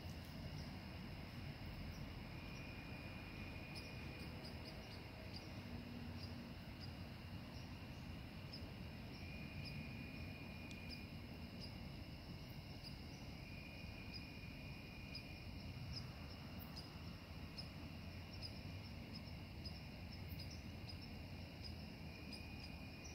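Crickets chirring steadily in the evening, with a lower trill lasting a second or so coming back every few seconds, over a low background rumble.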